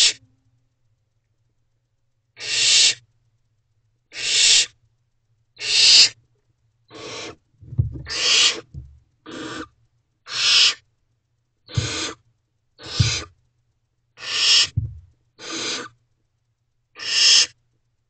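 Barn owlets giving harsh, hissing 'snoring' calls, the begging call of barn owl chicks. About a dozen rasping hisses come one after another, each about half a second long with a second or so between them, and a few are joined by a dull low thump.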